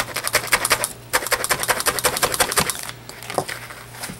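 Felting needle tool stabbing rapidly through wool roving into a styrofoam pad, a quick crunchy ticking at about eight pokes a second. It comes in two runs with a short break about a second in, and stops near three seconds in.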